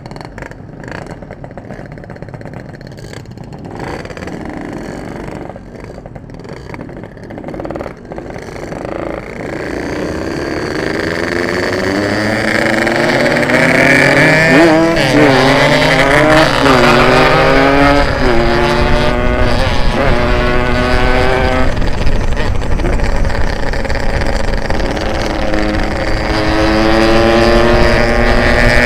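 Yamaha RX-King's ported two-stroke single-cylinder engine, quiet and uneven at low revs at first. From about ten seconds in it accelerates hard, its pitch climbing and dropping back at each gear change, and it runs loud and high for the rest.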